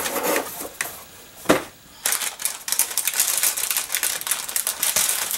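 Wrapping of a patterned paper package crinkling and rustling as it is unsealed and opened by hand, with one sharp tap about a second and a half in and dense crackling from about two seconds on.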